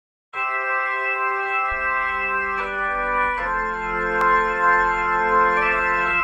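Background music of held, organ-like chords that starts a moment in and changes chord every second or so, with a bass line joining about a second and a half in.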